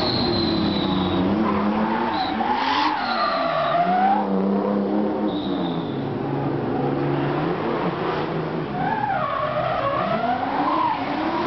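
Drift cars' engines revving up and down hard, with tyres squealing several times as the cars slide sideways through the corner.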